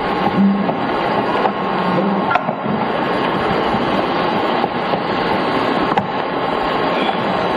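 Steady loud hiss like static, with a faint low hum and a few faint clicks, from the soundtrack of a camcorder night video played back over the hall's speakers.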